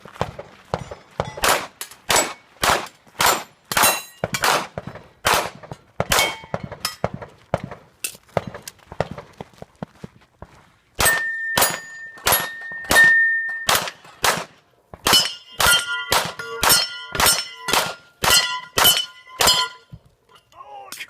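Pistol shots fired in quick succession at steel plate targets, with hits clanging and ringing, about two a second. After a short pause about ten seconds in, another run of shots and hits follows. Here the struck plates ring on with clear held tones, several at once near the end.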